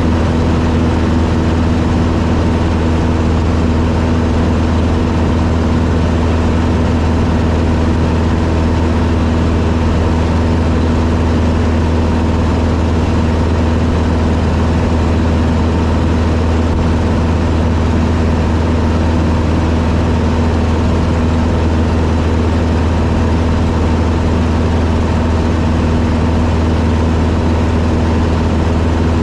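Taylorcraft BC12D-85's Continental C-85 four-cylinder engine and propeller droning steadily at cruise power, heard from inside the cabin.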